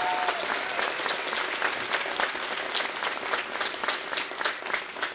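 Audience applauding at the end of a song, the clapping thinning out near the end.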